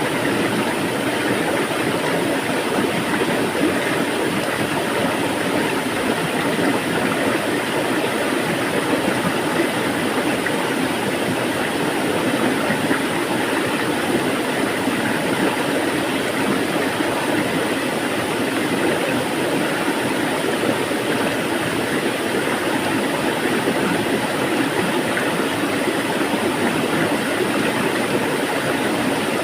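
Flowing water making a steady, even rushing sound.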